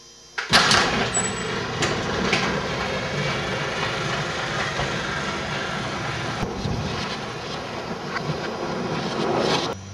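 Electric garage door opener running as a sectional garage door lifts: a steady mechanical noise that starts with a jolt about half a second in and stops abruptly just before the end.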